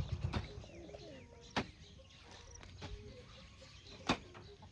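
Hand hoe chopping into garden soil: four sharp strikes about a second and a quarter apart, with birds calling in the background.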